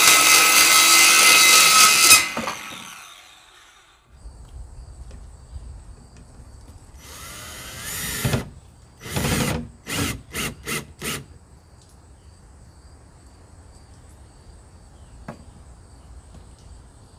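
Ryobi circular saw cutting plywood, cutting off about two seconds in and winding down. Then a cordless drill driving screws through a plywood board: two longer runs, the first rising in pitch as the motor spins up, followed by four quick short bursts.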